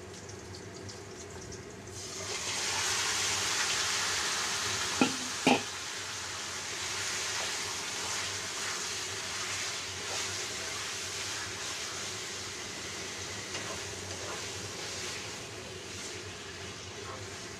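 Marinated chicken pieces hitting hot oil in a stainless-steel wok, a loud sizzle bursting up about two seconds in over the faint frying of garlic, then settling into a steady sizzle as the pieces are stirred with a wooden spatula. Two sharp knocks against the pan come a few seconds after the chicken goes in.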